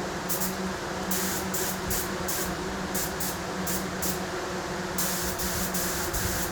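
Primer being sprayed: a hiss that comes in repeated short bursts, roughly a dozen, each a fraction of a second long, over a steady low hum.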